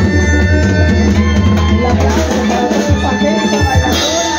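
Live dance band playing: drum kit and congas keep a steady beat under a heavy bass line, with saxophones in the band.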